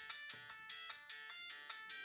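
Siemens CXT65 mobile phone ringtone playing: a quick synthesized melody of bright notes, about five a second, with little bass.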